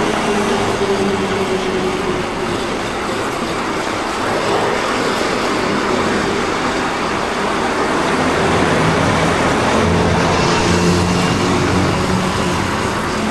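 Yamaha Crosser 150's single-cylinder four-stroke engine running in city traffic, under a steady rush of wind and road noise. The engine note falls in the first couple of seconds and comes up again about eight seconds in.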